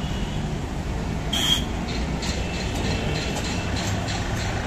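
Heavy road traffic passing close by: truck and other vehicle engines and tyres make a steady low rumble. About a second and a half in, a short, sharp, high-pitched burst stands out as the loudest moment.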